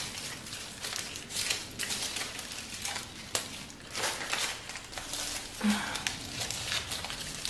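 Crinkling and rustling of a fruit roll-up's wrapper and paper backing being handled and peeled, a run of irregular small crackles.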